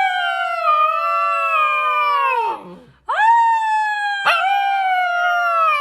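A dog howling: two long, steady howls. The first slides down in pitch and trails off about two and a half seconds in. The second starts half a second later with a quick rise and slides down again near the end. A short click cuts across each howl.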